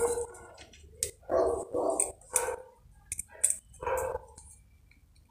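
A dog barking about five times, short sharp barks spread through a few seconds. Between them come a few small clicks of a screwdriver and wires being handled on a plastic bulb holder.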